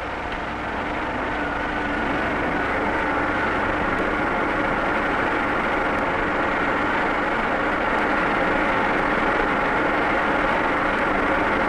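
Vertical boring mill running with its table turning and both power feeds engaged, making a steady machine drone with faint steady tones. The drone grows a little louder over the first couple of seconds, then holds even.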